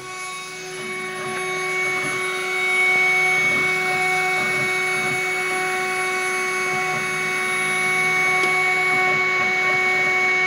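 High-speed spindle of a home-built CNC mill whining steadily over a hiss while its engraving bit cuts isolation tracks into a copper-clad circuit board. It grows louder over the first three seconds, then holds steady.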